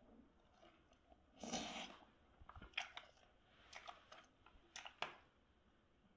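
Faint eating sounds: a slurp of noodle soup about a second and a half in, then chewing with a string of short, sharp clicks.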